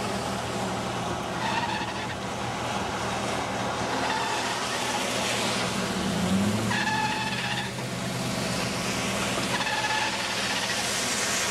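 Steady wind-and-rain noise around a storm chasers' vehicle, with a low engine hum underneath and a faint brief tone a few times, clearest about seven seconds in.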